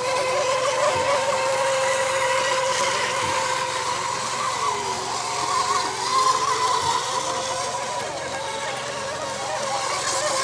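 Radio-controlled mono-hull racing boats running flat out across the water: a steady high-pitched motor whine whose pitch wavers slightly as the boats race.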